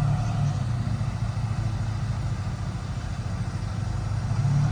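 Bulldozer's diesel engine running steadily, easing off a little in the middle and building up again near the end as it takes load.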